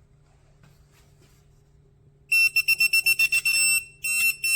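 Faint low hum, then, a little over two seconds in, a loud, shrill piezo beeper starts sounding in rapid pulses, breaking off briefly just before the end.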